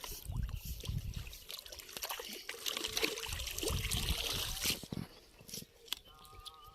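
Pond water splashing and trickling in irregular bursts, dying down about five seconds in.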